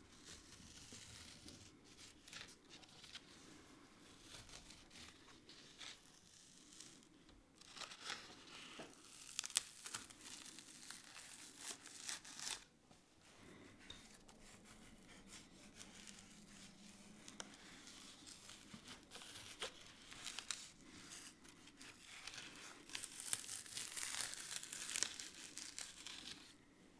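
Thin metal spatula scraping and prying between layers of old, flood-damaged paper as the layers tear apart, a faint scratchy rustle with small crackles, louder about a third of the way in and again near the end. The layers part easily because the adhesive holding them has failed.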